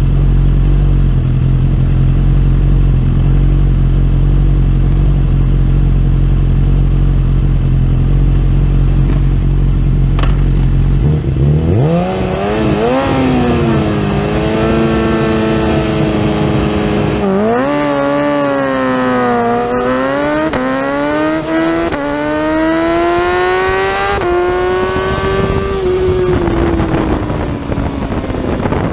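BMW S1000RR inline-four sports bike engine idling on the starting grid, then revved up about twelve seconds in and held high for the launch. From about seventeen seconds it accelerates hard, the revs climbing and dropping at quick upshifts about two seconds apart, and the revs fall away near the end.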